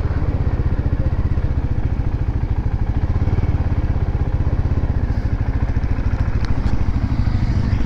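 Motorcycle engine running steadily under way, heard from the rider's seat, a dense low throb at an even pace.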